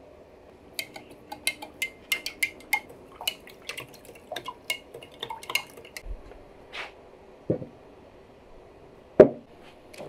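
White granules poured from a glass jar into another glass jar, with a quick run of light, ringing glass clinks and ticks for about five seconds. A few duller knocks follow, then one loud thud near the end.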